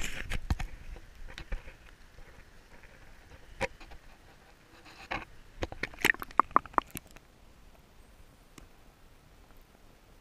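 River water splashing close to the microphone as a trout is handled at the surface. A few sharp knocks and drips follow, with a quick run of clicks and small plinks about six to seven seconds in.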